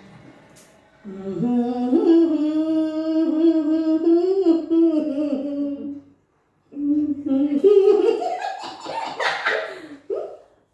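A woman's voice humming a long, steady, slightly wavering note for about five seconds, then after a brief pause a second stretch of humming and voice that breaks up toward the end, as the woman being tickled tries to keep from laughing.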